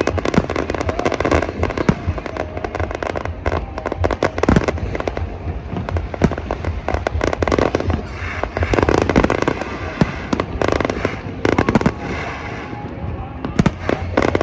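Fireworks going off: dense flurries of sharp pops and crackles, with a few heavier bangs between them.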